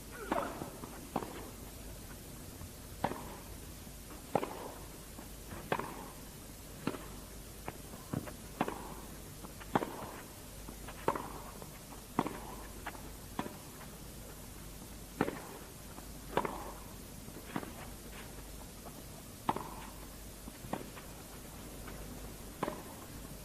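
Tennis ball struck back and forth with racquets in a long grass-court rally: a sharp pop about every second or so, some hits louder than others, over a faint steady background hush.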